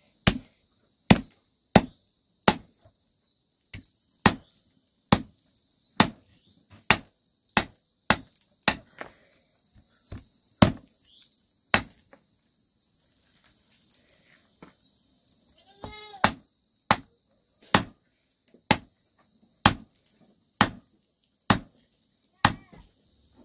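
Knife chopping a bone-in chicken on a wooden block: sharp, even strikes a little under a second apart, with a pause a little past halfway. A short high-pitched call sounds once, about two-thirds through.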